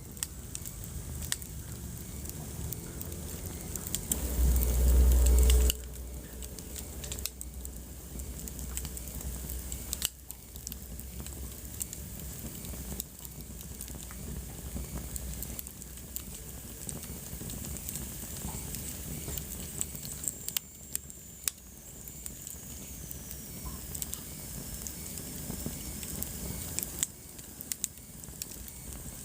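Wood fire crackling in a fireplace, with frequent sharp pops over a steady hiss. About four seconds in, a low rumble lasts a second and a half, and later a faint high whistle slides down in pitch.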